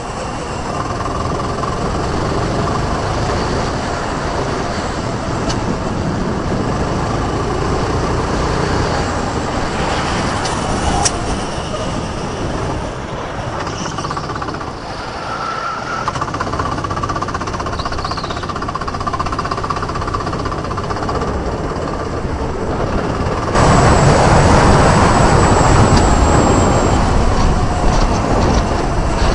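Rental go-kart heard from onboard at speed: its engine running steadily under the rush of wind and tyre noise through the corners. About three-quarters of the way through the sound turns abruptly louder and rougher with wind noise.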